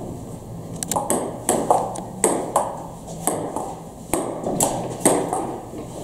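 Table tennis rally: the ball clicking off the paddles and bouncing on the table in a steady back-and-forth rhythm of about two to three clicks a second, starting about a second in.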